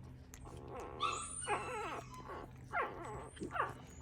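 Coton de Tulear puppy whimpering: a few short, high whines that drop sharply in pitch, about a second apart.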